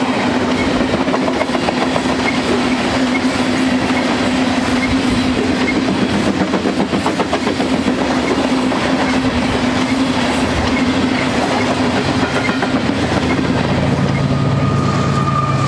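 Freight train of covered hopper cars rolling past close by: a steady rumble of steel wheels with continual clickety-clack over the rail joints. Near the end, the diesel of a GE locomotive placed behind the hoppers joins in as a deeper steady hum.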